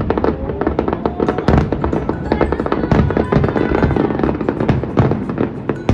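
Aerial fireworks display: rapid, overlapping bangs and crackles from bursting shells, with music playing underneath.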